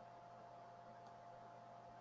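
Near silence: faint steady background hiss with a low electrical hum.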